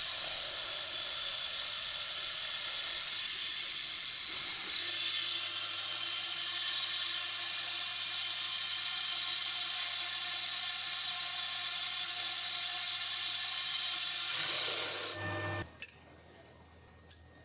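Lathe taking a light finishing boring pass inside a 17-4PH stainless steel sleeve with coolant spraying on the cut: a steady hiss over a faint machine hum, which stops abruptly near the end.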